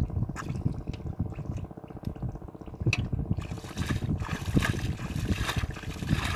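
Muddy water sloshing and splashing as hands dig through shallow water and mud, with a stretch of heavier splashing from about three and a half seconds in, over a steady low rumble.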